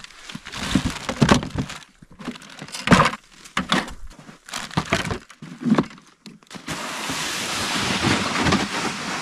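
Gear being handled on and around a plastic ice-fishing sled: scattered knocks, thunks and rustling of the bucket, pack and clothing. About two-thirds of the way in, a steady scraping hiss begins, consistent with the loaded sled being dragged over the snow.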